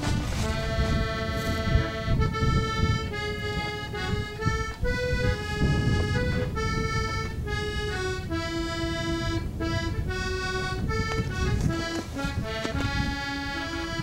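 Background instrumental music: a melody of held notes that change every fraction of a second, over a low, uneven rumble.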